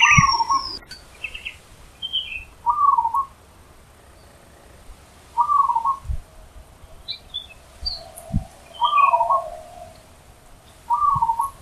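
Zebra dove (perkutut) singing, its short rolling cooing phrase repeated five times about every two to three seconds. Faint, higher chirps of small birds fall between the phrases.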